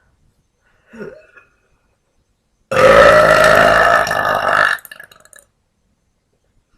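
A woman's long, loud burp lasting about two seconds, a little before the middle, after a brief faint sound about a second in.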